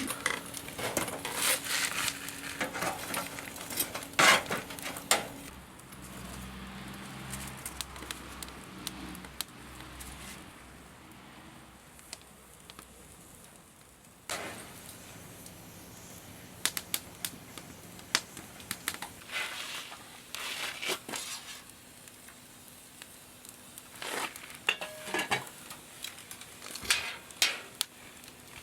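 Cooking sounds: metal utensils clinking and scraping against pots and dishes, in scattered irregular clicks over a quiet steady background, with occasional crackles.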